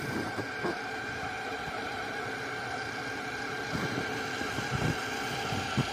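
A 1/10 scale RC crawler's Hobbywing Fusion SE brushless motor and drivetrain whining steadily as the truck pushes through deep snow. A few soft low thumps, mostly in the second half, come from the truck working through the snow.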